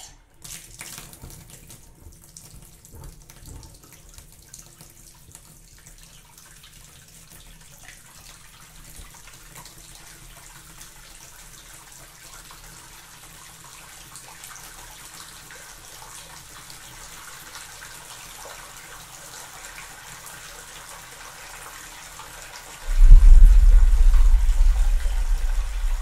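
Water running from a tap: a steady hiss that slowly grows louder. Near the end a much louder, deep rushing sound comes in suddenly and carries on.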